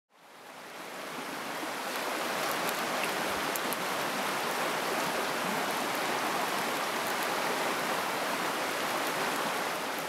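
Shallow river rushing over rapids, a steady rush of water that fades in over the first couple of seconds.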